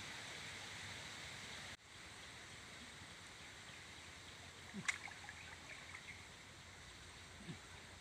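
Steady rush of a muddy, swollen river flowing past flooded trees; about two seconds in it drops to a quieter wash of water along the bank. A single sharp click sounds near the middle, followed by a few small ticks.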